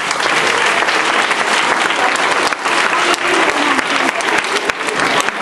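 A large audience of schoolchildren applauding: dense, steady clapping.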